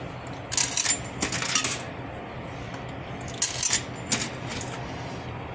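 Coins dropped one after another into a vending machine's coin slot, each clinking and rattling down through the coin mechanism: two pairs of clinks about three seconds apart.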